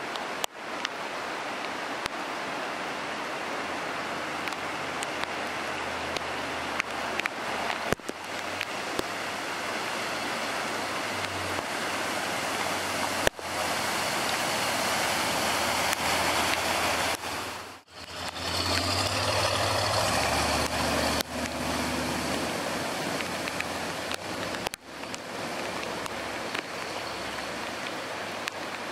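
Cars and trucks driving through deep standing water on a flooded road, their tyres throwing up heavy spray in a constant rushing splash, with engine hum underneath at times. The sound breaks off abruptly and restarts about five times.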